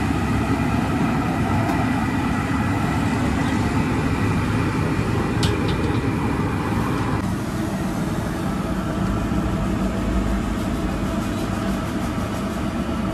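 Steady low roaring noise with no speech, changing in character about seven seconds in.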